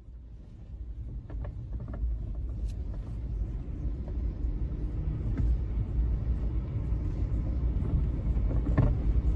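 A low rumble that slowly grows louder, with a few faint clicks scattered through it.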